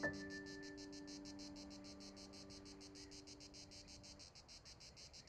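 A final piano note rings out and fades away over about four seconds, over the faint, steady pulsing chirp of crickets, about six pulses a second.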